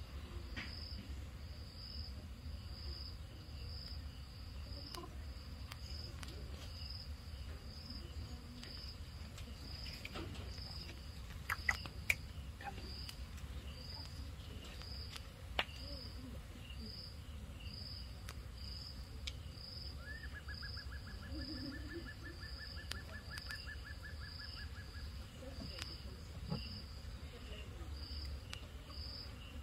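An insect chirping steadily: a high-pitched pulse repeating a little faster than once a second. A lower, rapid trill joins for several seconds past the middle, and a few sharp clicks come just before the middle.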